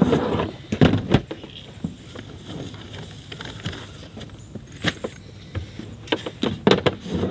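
Gear being rummaged through in the open rear cargo area of a minivan: scattered knocks and sharp clicks of items being moved, with rustling in between.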